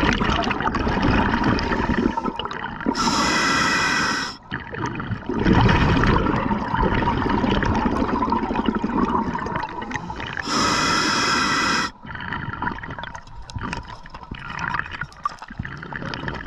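Muffled, churning water noise from a diver moving through the water with an underwater camera. Twice, about three and ten seconds in, a pitched tone with many overtones sounds for about a second and a half each time.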